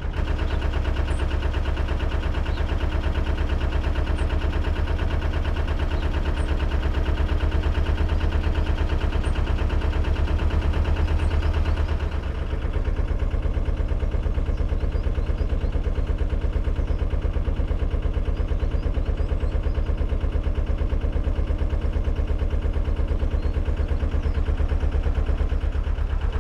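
Narrowboat's inboard engine running steadily under way, a deep, even beat heard from on board.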